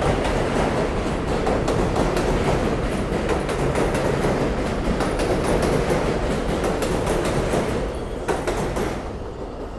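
New York City subway J train on an elevated steel structure running past and pulling away, its wheels clattering over the rail joints with many sharp clicks. The sound fades from about eight seconds in as the last cars leave.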